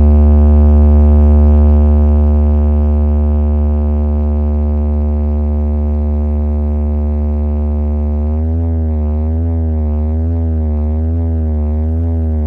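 Sustained synthesized sub-bass tone for a DJ sound-system bass check, very deep and held steady. About eight seconds in, its upper overtones begin to wobble up and down about twice a second.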